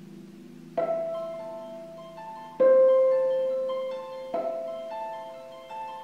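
Concert harp played solo: low notes ringing on, then firm plucked chords about every two seconds, each left to ring, with lighter higher notes between them. The strongest chord comes about two and a half seconds in.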